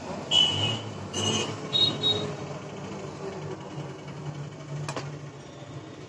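Metallic clinks and knocks as a Tufan table fan's metal blade is fitted onto the freed motor shaft and turned by hand. The knocks come in the first two seconds, some ringing briefly. After them a steady low hum carries on, with a single sharp click about five seconds in.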